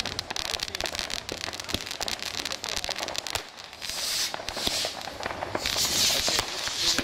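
Many New Year's Eve fireworks and firecrackers going off across a town, a constant rapid scatter of pops and bangs. A hissing crackle swells about four seconds in and again near the end.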